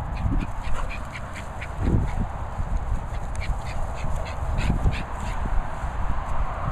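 A rubber squeaky ball being chewed in a dog's mouth, giving many short, irregular squeaks in quick runs. A few low thuds knock on the microphone.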